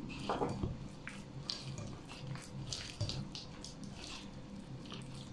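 A hand mixing and squeezing soft cookie dough of margarine, sugar, egg and cocoa in a glass bowl, making a quick, irregular run of small, sticky squishes.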